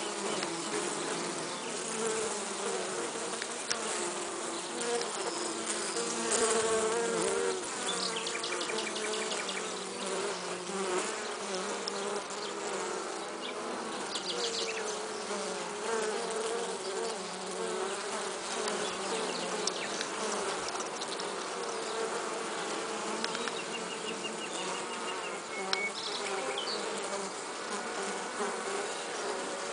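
Honeybees buzzing on the comb: a steady, wavering hum from many wings inside the hive.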